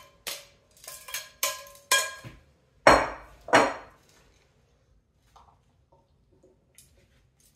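A metal serving spoon clinks and scrapes against a glass bowl several times, the clinks ringing briefly, as salad is scraped out onto a plate. About three seconds in come two louder knocks, followed by faint clicks of the serving utensils on the plate.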